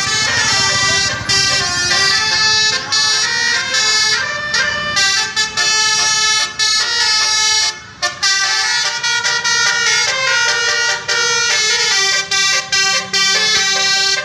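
Indonesian bus's telolet horn, a set of air horns sounding in turn, playing a tune in quick stepping notes with short breaks between phrases.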